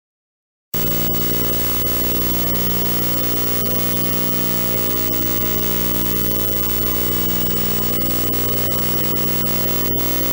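A harsh, loud electronic buzz made of many steady stacked tones. It cuts in abruptly out of dead silence about a second in and holds unchanged, with a brief dropout near the end.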